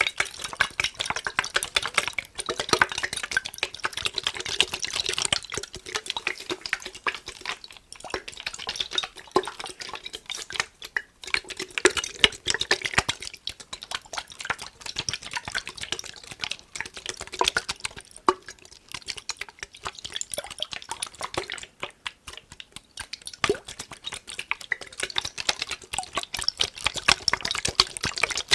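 Fast, dense tapping on a glass mason jar with water in it, the water sloshing and splashing inside the glass as it is handled.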